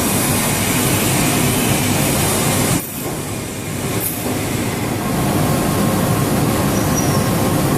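Loud, steady industrial machinery noise that dips briefly about three seconds in and then carries on.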